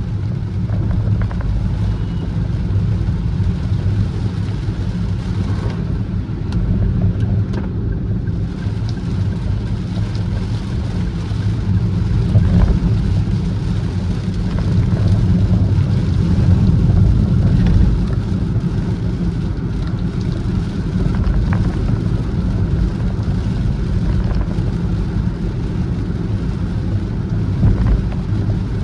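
Car being driven, a steady low rumble of engine and road noise that swells slightly for a few seconds midway.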